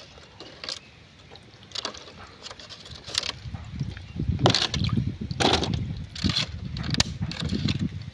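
Water splashing and dripping as a small wire fish net scoops a betta out of a plastic tub, with scattered sharp clicks and knocks of handling against plastic. A low rumble joins from about four seconds in.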